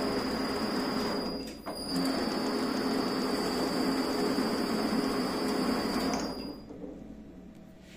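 Handmade lathe driven by three-phase motors on variable frequency drives, running as the tool cuts a 3 mm pitch thread into a brass tube: a steady mechanical hum with a high, fixed whine. It dips briefly about a second and a half in, then winds down and stops about six and a half seconds in.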